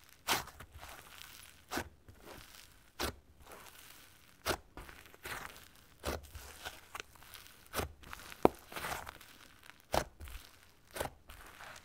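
Slime being played with by hand: about nine sharp, wet pops and crackles spaced roughly a second apart, with faint squishing between them.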